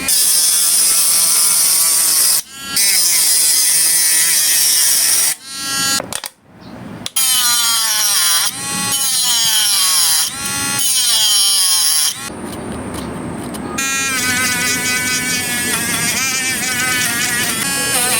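Mini grinder's small electric motor running at high speed with a high whine. Its pitch repeatedly falls and climbs again as it slows and speeds back up, cutting out briefly a couple of times.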